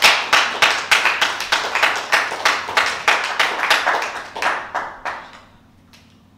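A small audience clapping, the claps coming thick and even, then thinning out and dying away about five seconds in.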